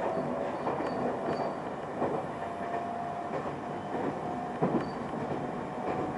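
Local train running, heard from inside the carriage: a steady rumble with wheels knocking over rail joints, the sharpest knock about three-quarters of the way through. A thin steady whine runs through the middle.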